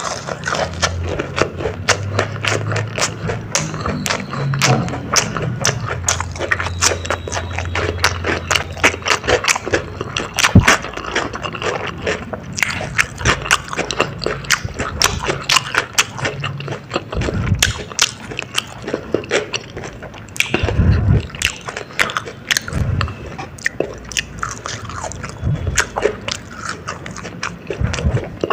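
Close-miked eating of a crispy corn dog: bites and chewing with dense, irregular crunchy crackles throughout. A low steady hum sits under the first nine seconds or so.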